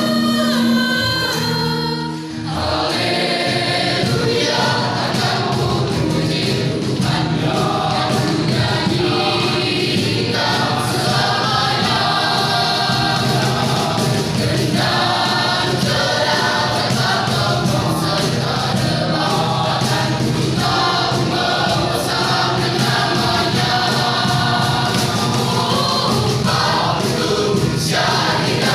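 Church youth choir singing in parts, with a brief drop in level about two seconds in before the singing carries on.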